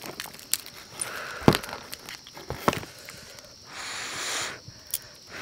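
Cooked crab shells cracked and pulled apart by hand, with a few sharp cracks over soft rustling, then a breath blown on a piece of hot crab meat near the end.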